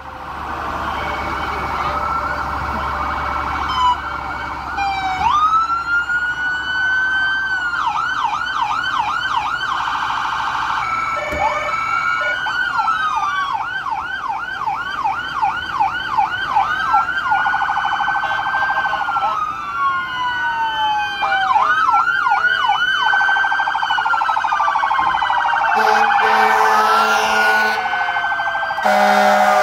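Several emergency vehicle sirens sounding together from lined-up police cars, fire engines and an ambulance, slow rising-and-falling wails overlapping with fast yelps at about three a second. A lower, steady blare joins in near the end.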